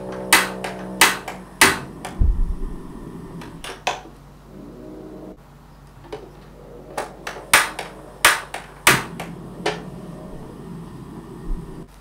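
Metal fork clinking against a ceramic bowl in sharp strikes about every half second, in two runs with a pause of a few seconds between them.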